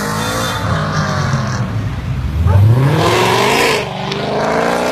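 A performance car's engine accelerating hard, its pitch climbing, dipping suddenly about four seconds in at a gear change, then climbing again.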